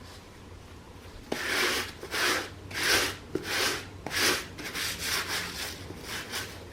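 Brisk rubbing strokes on a sneaker, about ten of them, beginning about a second in, each lasting a fraction of a second with short gaps between.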